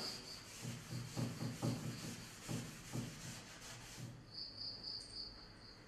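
Faint, steady high-pitched pulsing trill of an insect, with several soft low knocks in the first three seconds.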